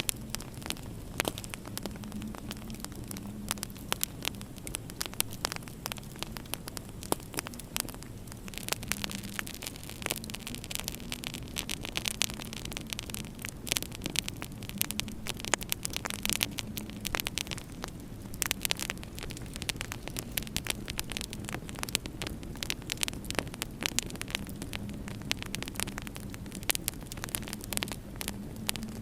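Wood fire in a fireplace crackling, with many sharp irregular pops, over a steady low hum.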